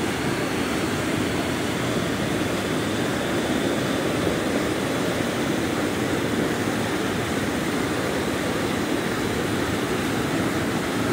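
River water pouring over a concrete dam spillway, a steady rush of whitewater that holds an even level throughout.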